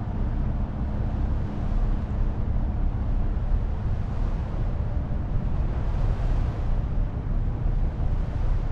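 Steady low rumble of a workboat's engine running, mixed with wind buffeting the microphone.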